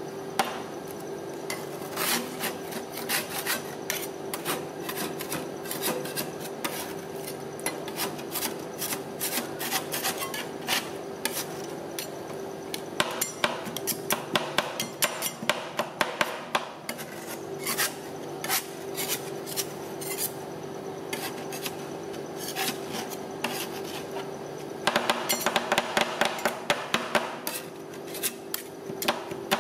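Two steel spatulas chopping and scraping fruit and cream on a frozen steel rolled-ice-cream pan: irregular sharp clicks and scrapes of metal on metal, turning into fast repeated chopping near the end. A steady hum runs underneath.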